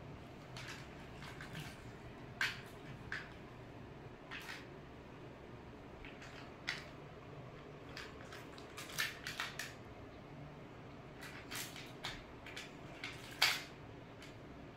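Scattered light clicks and taps from kittens playing with small toys on a hard tiled floor, over a steady faint hiss; the sharpest tap comes near the end.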